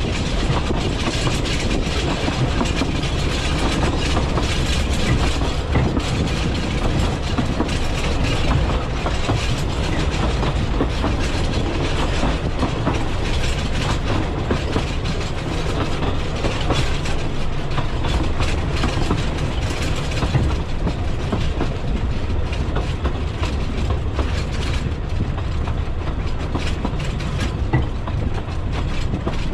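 Talyllyn Railway narrow-gauge train running along the line: a steady rumble and rattle, with wheels clicking over the rail joints.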